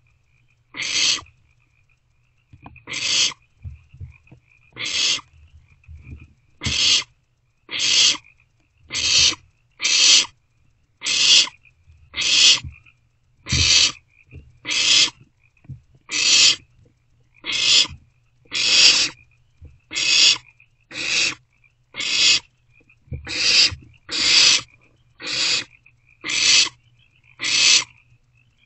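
Barn owlets giving their hissing, rasping begging calls. Each rasp lasts about half a second and comes roughly once a second, closer together later on. This is the food-begging hiss of young barn owls around fresh prey.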